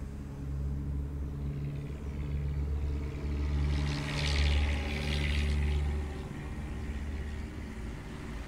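A vehicle passing close by: a low rumble that swells and then fades, with a hiss that peaks about four and a half seconds in.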